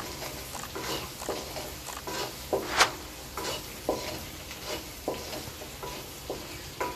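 Wooden spatula scraping and knocking against a metal kadai as sliced onions, garlic and scrambled egg are stirred, with a light sizzle of frying underneath. The strokes come repeatedly, about two or three a second.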